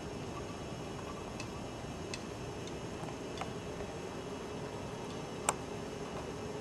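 Steady background hiss with a few faint, irregular ticks and one sharper click about five and a half seconds in.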